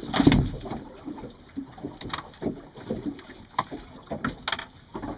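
A sharp thump just after the start, then scattered knocks and clicks of gear being handled aboard a small fishing boat, over a low wash of water and wind on the microphone.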